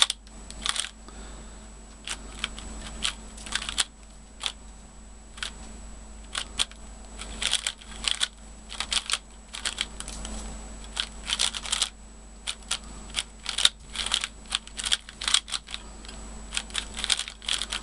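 QiYi Valk3 3x3 speed cube being turned fast during a solve: irregular runs of quick plastic clicks with short pauses between, a soft sound for a speed cube.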